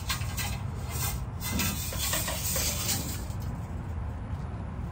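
A 5/16-inch fuel line rubbing and scraping against the car's underbody as it is worked and latched into place: irregular scraping strokes over a steady low hum.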